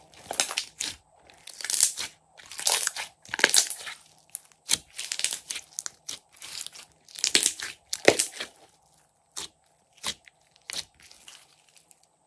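Hands squeezing, folding and stretching a large mass of glossy slime, a run of irregular wet squishes of varying length with a few short sharp clicks in the later part.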